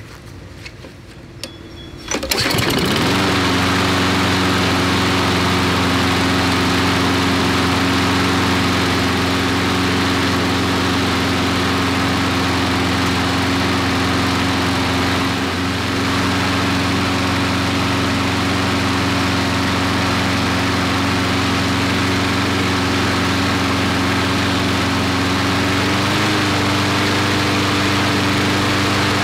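Briggs & Stratton flathead lawnmower engine starting about two seconds in and catching at once, then running steadily at about 2,650 rpm with its governor speed tab just bent forward to raise the speed. Near the end the pitch steps up slightly as the engine speeds up.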